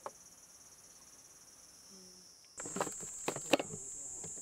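Steady high-pitched chorus of insects. A little over halfway through it abruptly gets louder, joined by a run of clicks and knocks from something being handled close by.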